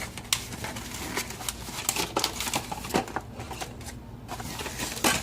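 Packaging and small plastic items being handled: light crinkling with irregular small clicks and taps.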